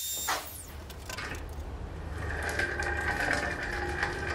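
Bosch POF 1200 AE plunge router whining at full speed, then switched off and spinning down in a falling whine about half a second in. A low hum follows, and from about two seconds in a steady mid-pitched mechanical drone with scattered ticks.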